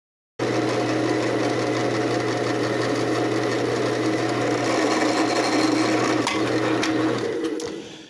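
Drill press running and boring a hole into a wooden dowel. It starts suddenly a moment in and runs steadily, and its motor hum drops out near the end.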